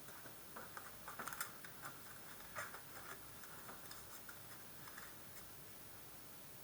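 Pokémon trading cards being handled and flipped through, cards sliding and tapping against each other in a run of soft, light clicks and scratches that thin out after about three seconds.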